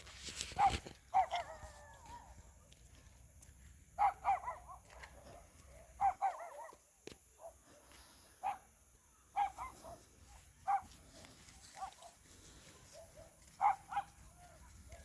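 A dog giving short, pitched barks and yelps, about a dozen calls at irregular intervals, often two in quick succession. There is one sharp click midway.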